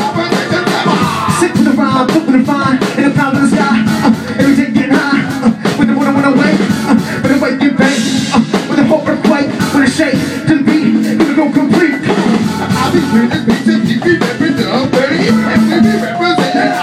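Live band music played loud: a steady bass line under dense, fast percussive hits.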